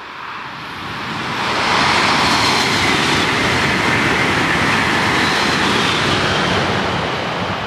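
An Amtrak Acela Express electric trainset passing through the station at speed: a rushing noise of wheels on rail that builds over about two seconds, then holds steady and loud.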